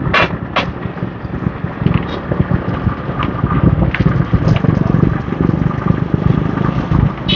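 Wind buffeting the microphone of a moving motorbike, over the running noise of the surrounding scooter traffic.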